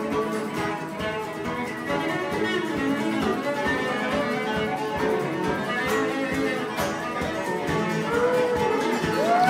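Acoustic string band playing an instrumental bluegrass passage: mandolin, cello and acoustic guitar together, with a few sliding notes near the end.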